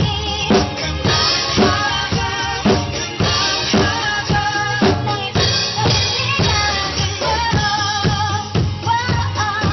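Acoustic drum kit played to a steady beat, about two strokes a second of kick and snare with cymbals, over a recorded pop song with a bass line and a sung melody.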